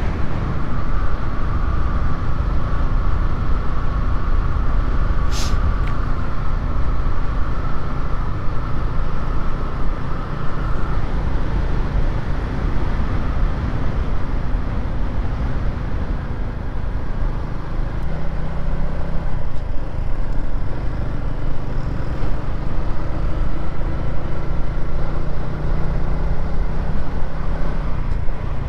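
Motor scooter riding along a road: steady engine and road noise with heavy wind rumble on the microphone. There is a brief high-pitched sound about five seconds in.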